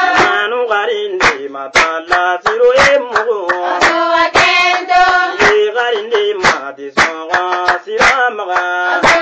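Singing, with voices holding and bending long notes, over sharp percussive strikes about twice a second.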